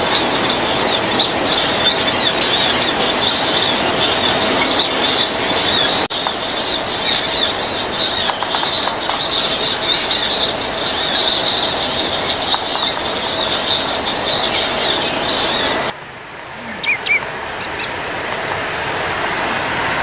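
Many small birds chirping densely and continuously over a steady forest hiss. A few seconds before the end it cuts off suddenly, leaving a quieter background with only a few scattered chirps.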